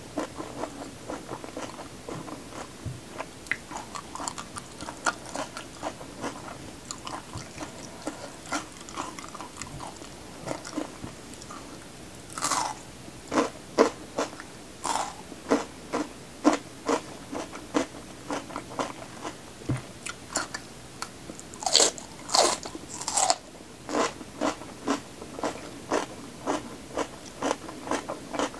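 Close-miked biting and chewing of raw red bell pepper: crisp crunches over a run of small wet chewing clicks. The loudest crunches come about twelve seconds in and again in a cluster around twenty-two seconds.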